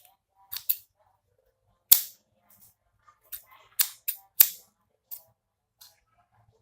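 A pair of scissors being handled: about nine sharp, irregularly spaced clicks and clacks, the loudest about two seconds in and again about four and a half seconds in.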